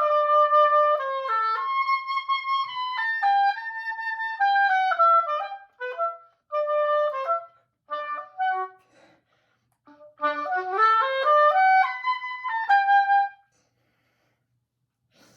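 Solo oboe playing: a phrase of long held notes, then short broken phrases with pauses, then a quick rising run of notes about ten seconds in, stopping a couple of seconds before the end.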